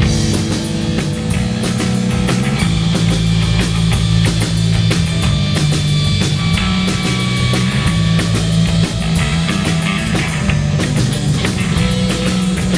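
Live punk rock band playing an instrumental passage with no vocals: distorted electric guitars, bass and a steady drum kit beat, loud throughout.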